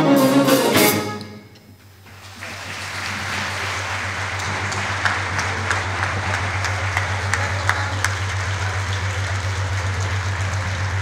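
Orchestra and choir music stops about a second in, and after a short pause a large audience breaks into steady applause.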